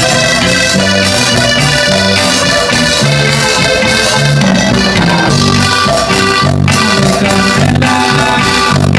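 A live Mexican regional band playing a Latin dance tune on keyboard, drum kit, acoustic guitar and electric bass, loud, with a steady beat and a bass line that moves on every beat or two.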